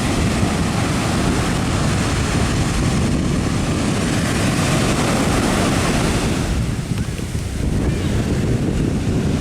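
Ocean surf breaking and washing onto the beach, with wind buffeting the microphone. The hiss of the wash eases for about a second roughly seven seconds in, then returns.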